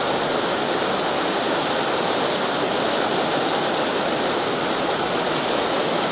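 Steady rushing of fast-flowing Mississippi River floodwater swirling past submerged trees.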